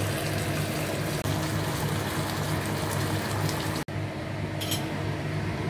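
Char siu sauce sizzling and bubbling around chicken wings in an open electric rice cooker pot as the liquid boils down to a glaze, over a steady low hum. The sound cuts out sharply just under four seconds in, and the hiss is softer after it.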